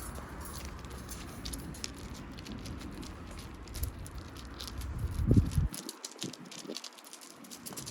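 Light, irregular clicking and pattering, typical of a Shiba Inu puppy's claws on a hard floor as it moves about, with a low thump about five seconds in.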